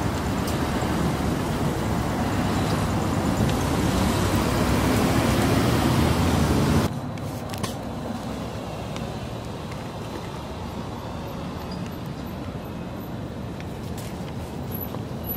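Road traffic noise: cars passing with a steady rumble that builds a little, then drops suddenly about seven seconds in to a quieter steady background of distant traffic, with a few faint clicks near the end.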